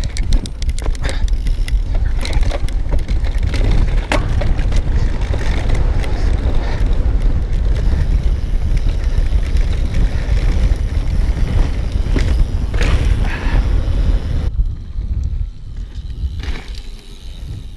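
Mountain bike ridden over rough grass: a steady low rumble of tyres and wind, with frequent rattles and clacks from the bike's chain and frame. About fourteen seconds in, the rumble drops away suddenly to a quieter hiss.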